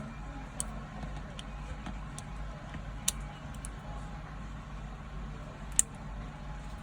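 Steady low hum with a few short, sharp clicks and ticks of small tools being handled at a phone repair bench, the loudest click near the end.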